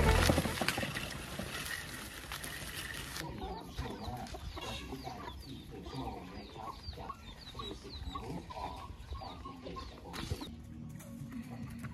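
Free-ranging chickens clucking, with chicks peeping, many short calls from about three seconds in. Background music fades out in the first couple of seconds.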